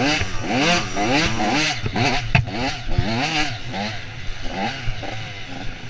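Dirt bike engine under way, its pitch rising and falling over and over as the throttle is worked over rough ground, with two sharp knocks at about two and three seconds in.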